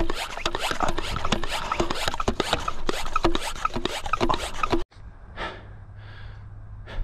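A bicycle ridden over rough ground: a dense, loud crackle and rattle of tyres and frame that cuts off abruptly about five seconds in. After that it is much quieter, with a steady low hum and a few short breath-like puffs.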